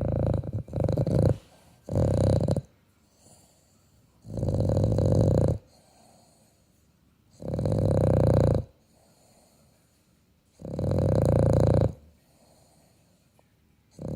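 Loud rhythmic snoring, a snore about every three seconds, each lasting a little over a second with quiet breathing gaps between. The first snores are broken into shorter choppy pieces before settling into the even rhythm.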